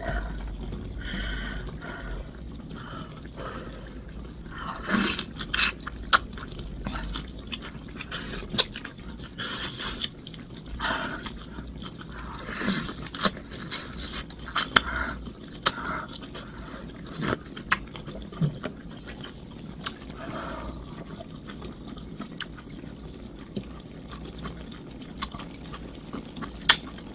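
Close-up eating sounds of a person having seaweed soup: wet slurping and chewing of seaweed off a wooden spoon, with many short, sharp mouth clicks and smacks.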